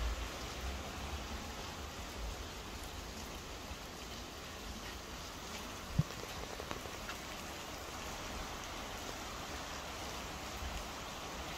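Steady heavy rain falling, with a single sharp knock about halfway through.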